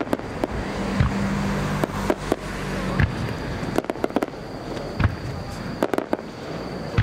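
Aerial firework shells bursting in the sky: a series of sharp bangs, some single and loud, others in quick rattling clusters.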